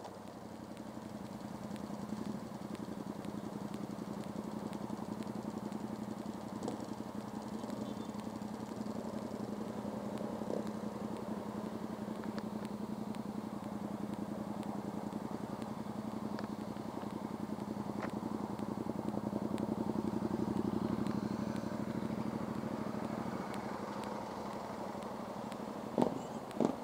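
Motorcycle engine idling steadily, getting a little louder about three-quarters of the way through before easing back. Two sharp knocks near the end.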